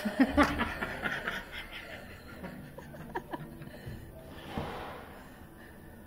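A person laughing in quick chuckling bursts during the first couple of seconds, then quieter, with a short breathy rush about four and a half seconds in.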